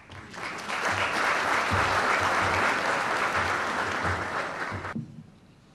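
Audience applauding, a dense clapping that builds quickly and stops abruptly about five seconds in.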